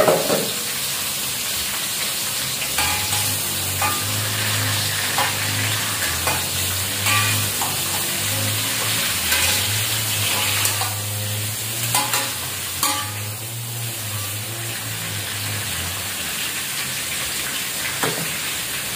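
Sliced chayote sautéing in hot oil in a steel wok: a steady sizzle, with a metal spatula scraping and clinking against the wok every second or two.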